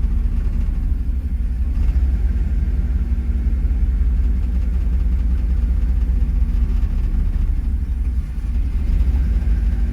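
Chevrolet Camaro engine idling in reverse gear, a steady low rumble with a brief sag about eight seconds in. It is hesitating under the load of the gear but staying running, on a car that had been stalling when put in reverse, a fault the owner puts down to a vacuum leak.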